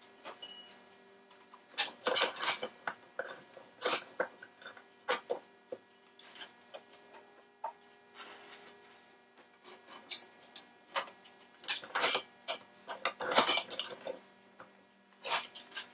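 Brass lamp head clinking and scraping against its metal bench fixture as it is turned and handled during soldering: irregular clicks and clatters, some loud, with a brief hiss a little past halfway.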